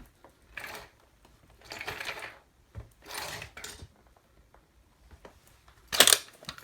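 Plastic toy truck cracking and crunching under a boot: several short crackling bursts, with a louder, sharper crack about six seconds in.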